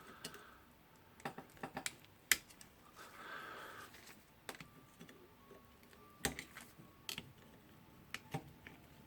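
Irregular small clicks and taps of a hand tool working a retaining ring out of a rotary hammer's metal housing, with a brief scrape about three seconds in.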